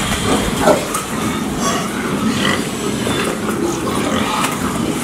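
A group of domestic pigs grunting and squealing, many calls overlapping, the loudest a short squeal under a second in.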